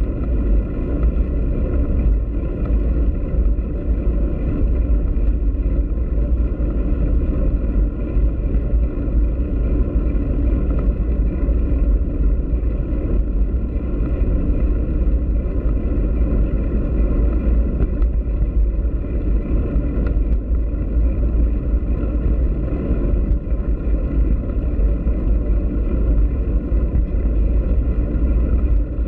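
Steady rolling noise of a bicycle ridden over brick paving, picked up by a bike-mounted camera: a loud, deep rumble of wind buffeting the microphone and tyres drumming on the pavers, with a faint steady whine above it.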